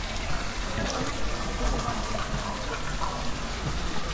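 Fountain water splashing and running steadily, with the murmur of people's voices in the square behind it.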